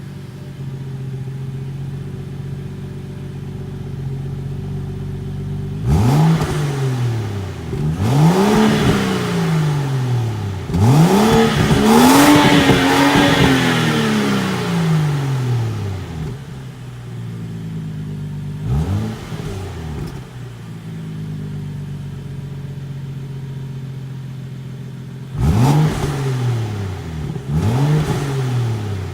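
2014 BMW 335i's 3.0-litre turbocharged inline-six (N55) with the M Performance Power Kit and factory exhaust, idling warm and being revved in free blips. The idle is steady for about six seconds, then come three quick revs, the third held longer, a single blip a few seconds later, and three more quick blips near the end, each rising and falling back to idle.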